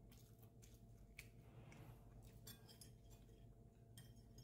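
Near silence: room tone with a steady low hum and a few faint scattered clicks.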